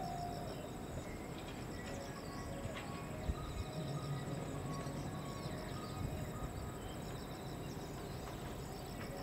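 Insects chirring steadily, with rhythmic pulsed trills over a continuous high whine, over a faint low rumble from the approaching 381-series train.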